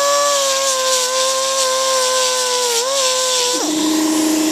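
Small handheld rotary grinder running at full speed with a steady whine, dipping slightly about three seconds in, then dropping to a lower pitch at about three and a half seconds as it bears down on the end of a band saw blade, grinding it clean for a silver-solder joint.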